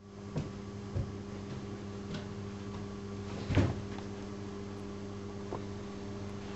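Steady electrical hum of room tone with a few soft knocks and bumps scattered through it. The loudest knock comes about three and a half seconds in.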